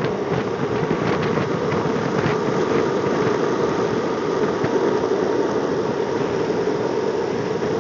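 Longboard wheels rolling on asphalt at speed: a steady road rumble.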